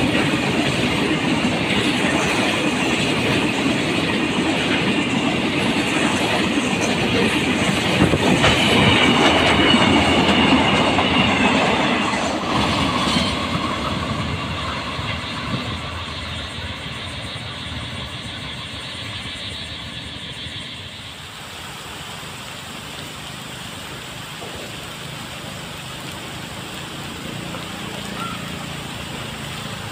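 A freight train of tank wagons rolling past close by, wheels clattering over the rail joints with a brief high wheel squeal, then fading as the train moves away. After a cut, a steady hiss of rain.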